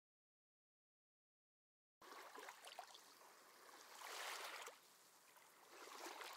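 Near silence: two seconds of dead silence, then faint room hiss with two soft swells of noise near the middle and end.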